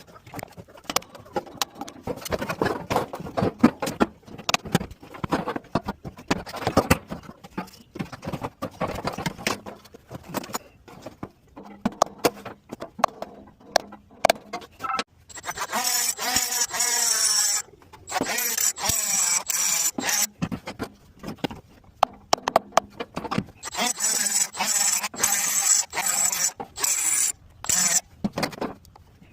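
Irregular knocks, clicks and scrapes of tools and metal parts being handled while a furnace blower motor is changed out. Around the middle and again near the end there are stretches of a louder, steady hissing whir.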